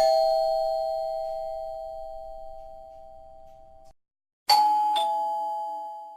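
Doorbell chime ringing twice: the first strike sounds two notes almost together and rings out, fading over about four seconds; about four and a half seconds in, a higher ding is followed half a second later by a lower dong, fading away.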